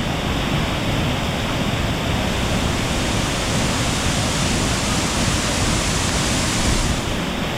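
A large waterfall's water falling and rushing, a loud, steady, unbroken roar of water.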